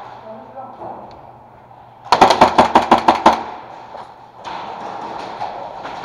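Airsoft gun firing a rapid automatic burst of about ten sharp shots, roughly eight a second, lasting just over a second.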